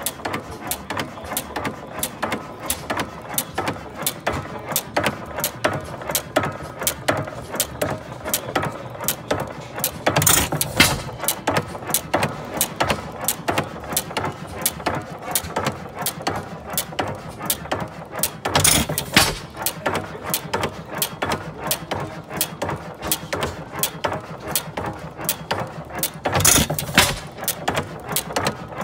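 Hercules Gas Engine Works horizontal stationary gas engine running with its flywheels turning, giving a steady, even clicking about three or four times a second. Three times, about eight seconds apart, it gives a louder, deeper burst.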